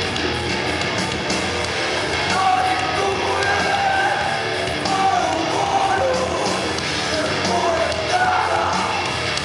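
Live rock band playing loud: a singer sings and shouts into a microphone over electric guitar and drums.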